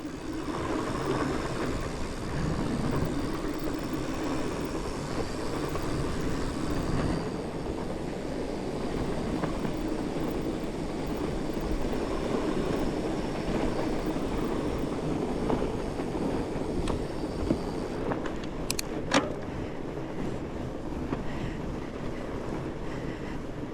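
Mountain bike rolling down a rough dirt trail: a steady rumble of tyres on the ground with the bike rattling, and two sharp clicks close together about three quarters of the way through.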